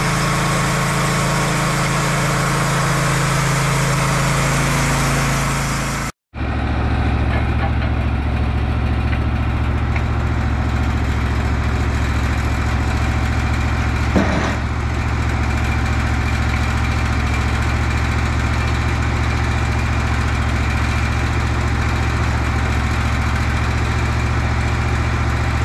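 Engine of a Wood-Mizer portable band sawmill running steadily. About six seconds in it cuts off abruptly and picks up again as a steady run at a lower pitch, with a single short knock about halfway through.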